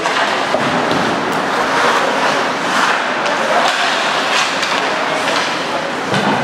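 Ice hockey play: skates scraping and carving on the ice in a steady rush, with a few sharp clacks of sticks and puck.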